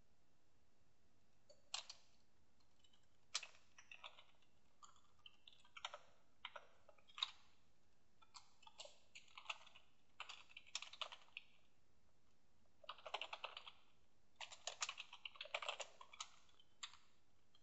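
Faint typing on a computer keyboard: irregular keystrokes that bunch into two quick flurries in the last third.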